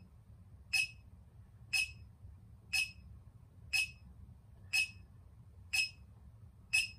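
A short, high electronic beep from a handheld meter, repeating evenly about once a second.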